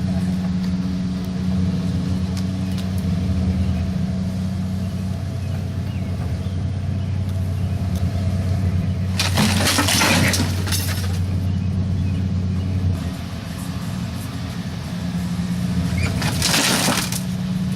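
A machine engine running steadily under load, with two loud crunching crashes, about halfway through and again near the end, as the motorhome's body is torn and crushed.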